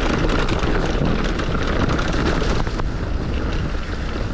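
Luna X1 electric mountain bike rolling down a leaf-covered dirt trail: a steady rumble of tyres over the ground with many small ticks and rattles from leaves and the bike, and wind on the microphone.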